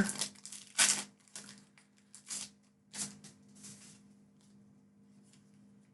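A Pokémon TCG booster pack being opened by hand: the foil wrapper crinkles and tears in several sharp rustles over the first few seconds, then handling grows faint.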